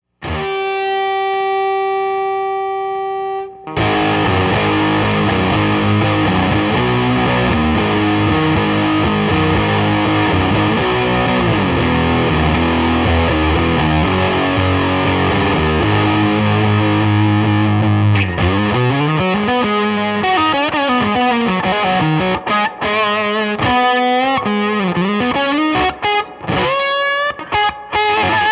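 Electric guitar through a dark, dirty one-knob Colorsound-style fuzz pedal, the Right Stuff Fuzz. It plays a held note, then a thick chord riff, and from about two-thirds of the way in, single-note lead lines with bends and short breaks.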